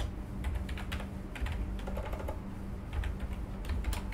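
Typing on a computer keyboard: quick, irregular keystrokes, over a low steady hum.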